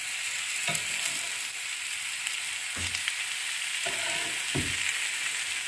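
Boiled artichokes dressed with olive oil sizzling on a hot stovetop griddle: a steady hiss, with a few soft knocks of a metal spatula against the pan as the pieces are set down.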